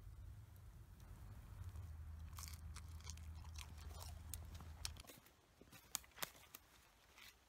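Faint crunching and chewing of grilled rabbit meat being eaten close to the microphone, over a low steady hum. About five seconds in the hum stops, leaving a few sharp clicks.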